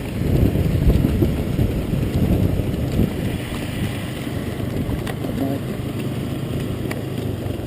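Motorcycle engine running at low speed, mixed with wind rushing over the microphone; the rumble is louder for the first few seconds, then settles.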